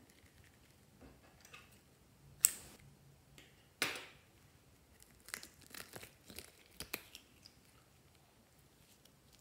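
Hands squeezing and pulling at a rubbery squishy toy and its soft filling, making tearing, crackling handling sounds. There are two sharp snaps about a second and a half apart, then a run of small crackles and clicks.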